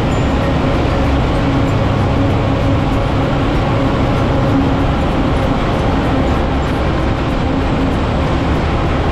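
Motorbike riding through a road tunnel: a steady, loud rumble of engine, tyres on the wet road and wind on the microphone.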